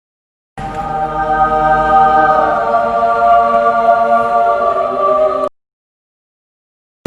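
A choir holding one sustained chord for about five seconds, starting abruptly and cutting off suddenly, as used as a comic sound effect.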